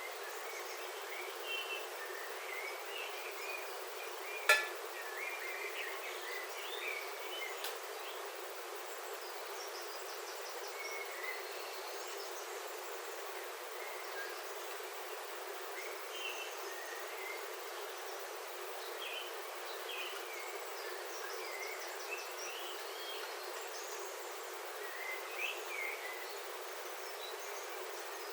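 Steady rain on a roof heard from inside, with birds chirping on and off throughout. A single sharp click about four and a half seconds in is the loudest sound.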